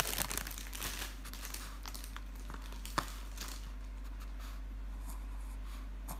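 Faint crinkling and light clicks that thin out after about a second, with one sharp click about three seconds in, over a steady low hum.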